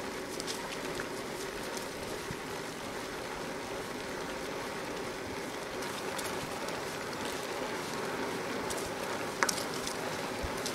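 Bicycle tyres rolling on a leaf-strewn asphalt path: a steady rushing noise, with a few light clicks and one sharper click near the end.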